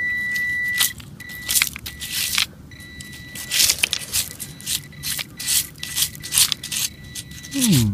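Handheld metal-detecting pinpointer giving a steady high-pitched beep with a few short breaks as its probe is held over a buried target among beach pebbles. Sharp scrapes and clicks of the probe against the stones are the loudest sounds.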